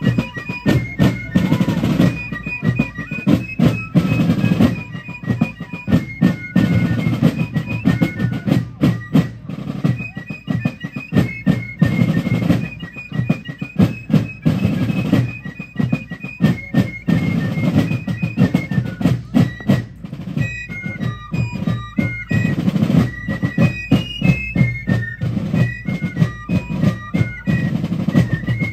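Fife and drum corps playing a march: shrill fifes carry the melody over rapid snare-drum rolls and bass-drum beats.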